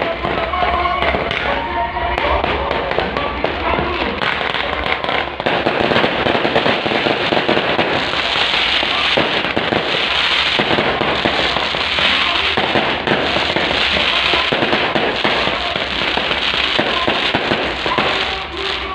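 Fireworks going off continuously in a dense, rapid crackle, thickening into a steady crackling fizz from about six seconds in. Music plays underneath.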